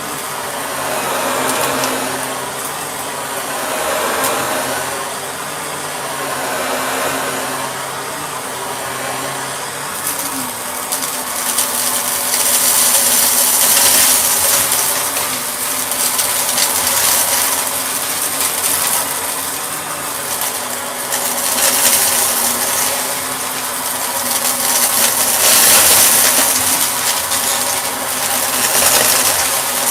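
Shark vacuum cleaner running, a steady motor hum under a rushing noise that swells and fades every couple of seconds and turns brighter and hissier about ten seconds in.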